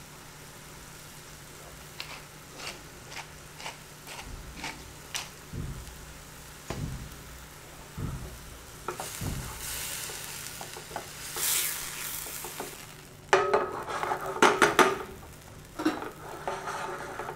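Chopped tomato, onion and garlic frying in hot oil in a frying pan, being stirred, with a soft sizzle and scattered knocks of a utensil against the pan. The scraping and clatter get louder and busier in the last few seconds.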